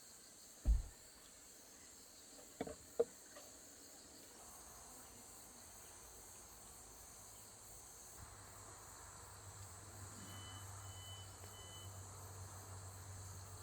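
A steady, high-pitched insect chorus, with a loud low thump about a second in and two sharp clicks near three seconds. A low hum comes in about halfway through.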